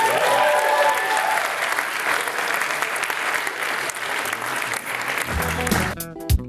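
Audience clapping and cheering, with a few whoops in the first second or so. About five seconds in the applause drops away and guitar music begins.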